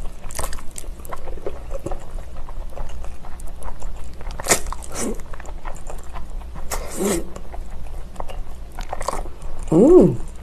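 Close-up eating sounds of a person slurping spicy cold noodles from chopsticks and chewing, several short slurps spread through. Near the end comes a short closed-mouth hum that rises and falls in pitch.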